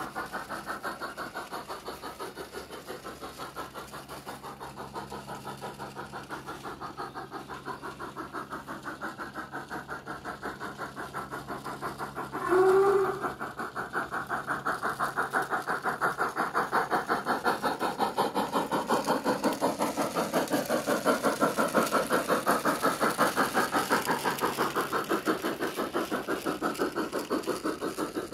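Piko BR 24 model steam locomotive's MyLocosound sound card playing fast, even steam chuffs through the model's small loudspeaker while it runs. A short whistle sounds about halfway through, the loudest sound, and the chuffing is louder after it.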